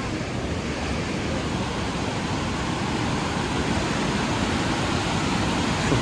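Steady rushing of a waterfall and the white-water river below it, growing slightly louder.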